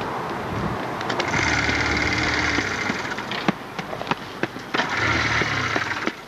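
People running as they push a Honda CM125 motorcycle along a paved lane to bump-start it, with quick footsteps and clatter over a rushing noise that swells and fades twice.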